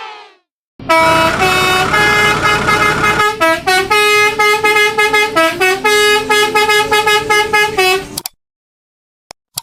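A quick tune of short honking notes in a horn-like tone, stepping up and down in pitch and stopping abruptly.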